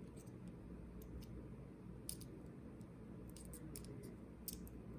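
Faint, scattered small metallic clicks and scrapes of a thin shim being worked into a tight-tolerance Robur lock cylinder, over a low steady hum.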